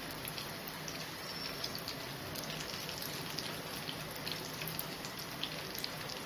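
Breadcrumb-coated spring rolls deep-frying in hot oil in a pan: a steady sizzle full of small pops and crackles.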